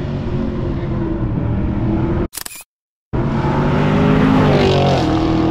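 Chevrolet Camaro SS's 6.2-litre naturally aspirated V8 sounding through its exhaust, steady at first, then after a brief dropout about two seconds in, revving up with a rising pitch.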